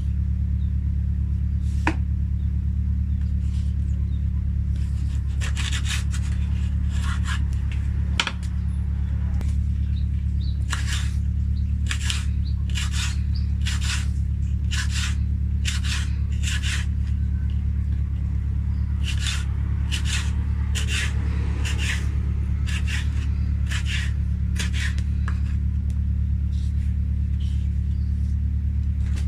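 Knife slicing vegetables on a wooden cutting board, short strokes in runs of roughly one or two a second, over a steady low hum.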